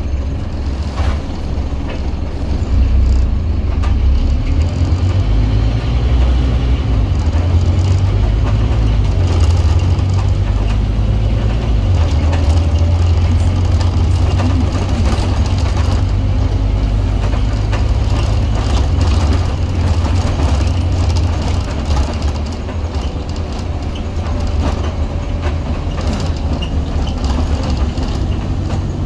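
Scania OmniCity bus heard from inside while under way: the low drone of its Scania DC09 9-litre five-cylinder diesel and the road noise, louder from about three seconds in and easing a little after about twenty-two seconds, with light rattles from the cabin.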